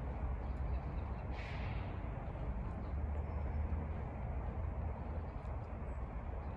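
Steady outdoor background noise, mostly a low rumble, with a single short bird call about one and a half seconds in.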